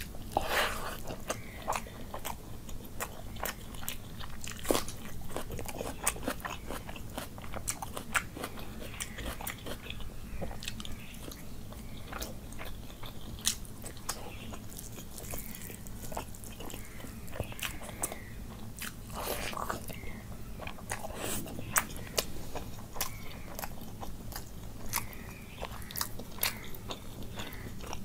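Close-miked eating: a man chewing mouthfuls of rice and curry eaten by hand, with crunching and many sharp wet mouth clicks at an irregular pace.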